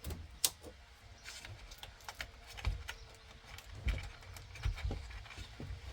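Scattered small clicks and a few dull knocks from handling steering-wheel parts while working at the tight paddle-shifter wiring clip, with one sharp click about half a second in.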